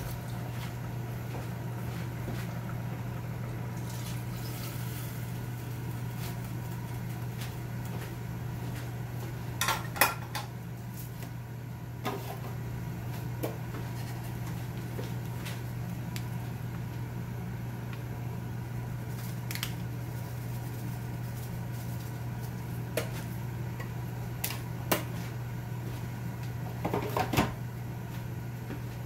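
A steady low kitchen hum, with a few scattered clinks and knocks of pots and dishes: a short cluster about ten seconds in, single ones here and there, and another cluster near the end.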